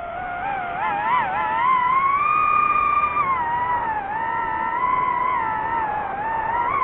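DJI FPV drone's motors and propellers whining, the pitch rising and falling with the throttle: a quick wobble about a second in, a climb that holds, then dips near the middle and again near the end.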